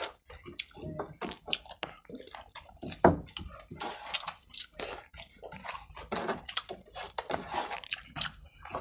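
Close-miked wet eating sounds from people eating rice and chicken curry with their hands: squishing as fingers mix rice into curry, with chewing and lip smacks in an irregular patter of small clicks. A sharper knock comes about three seconds in.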